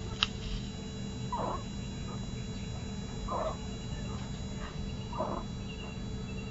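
Sick kitten making a short, rough, unpitched sound about every two seconds, three times, over a steady low hum. A sharp click comes just after the start.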